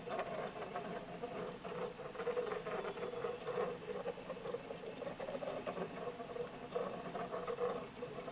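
Homemade linkage-arm drawing machine at work: its drive motors give a wavering whine under a fast, irregular patter of small clicks and scratches as the pen arm moves over the paper.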